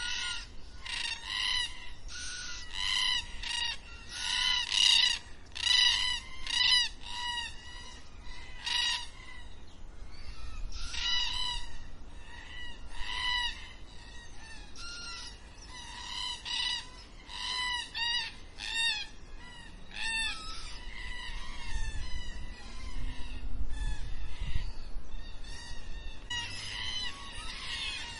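A flock of black cockatoos calling: a steady run of repeated, arching calls, several birds overlapping. A faint low rumble sits under them about two-thirds of the way through.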